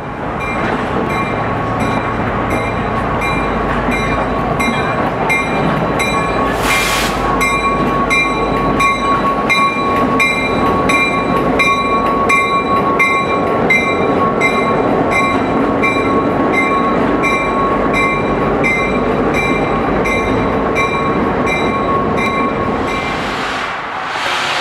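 A train rolling slowly past at close range, its coaches and diesel locomotive making a steady rolling noise, with a low rumble for the first ten seconds or so. A steady high tone runs through it, and a locomotive bell rings about twice a second.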